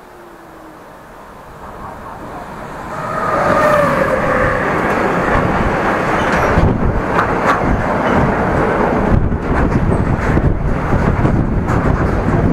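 Freight train approaching and then passing close by, a long rake of empty double-deck car-carrier wagons. It grows louder until about three seconds in, then settles into a loud, steady rumble of wheels on rail, with repeated sharp clacks from about six seconds on.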